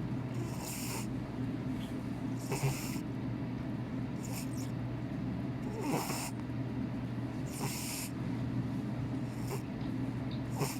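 A sleeping cat snoring, one short breathy snore about every second and three-quarters, over a steady low hum.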